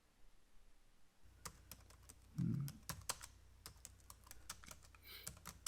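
Typing on a computer keyboard: irregular quick key clicks, starting about a second in, over a faint low hum. A brief low murmur is heard about two and a half seconds in.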